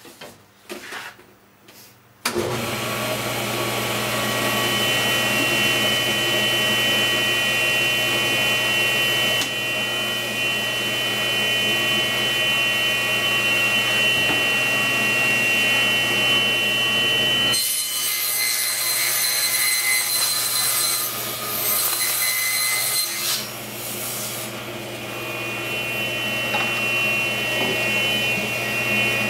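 Cabinet table saw switched on about two seconds in and running steadily with a high whine. For several seconds around the middle the sound changes as the blade cuts a rabbet along the edge of a maple plywood cabinet side, then it goes back to the free-running sound.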